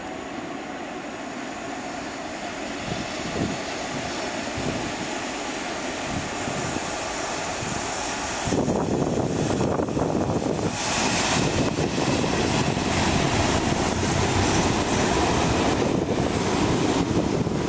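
ČD class 743 electric locomotive running with a train on the Tanvald–Kořenov rack line. Its motor and wheel noise grows suddenly much louder about halfway through, as it passes close by.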